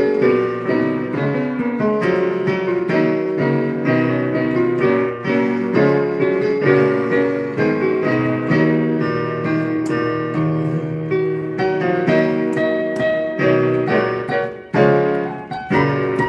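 Piano playing a hymn accompaniment in full chords, with a brief break near the end as the next verse begins.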